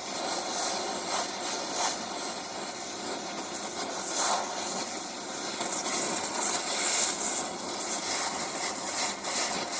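Oxy-fuel cutting torch flame hissing steadily as it preheats a rusted rim bolt, before the cutting oxygen is turned on.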